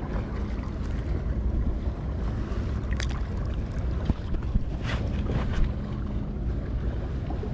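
Wind buffeting the microphone over open water, with a faint steady low hum underneath and a few brief sharp sounds about three and five seconds in.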